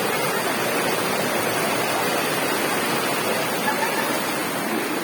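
Waterfall and river water rushing as a steady, even noise.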